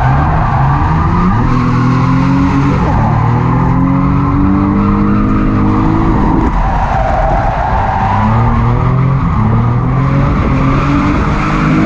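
Drift car's engine revving hard at high load, its pitch climbing for several seconds and falling back twice, while the tyres squeal and skid throughout the slide.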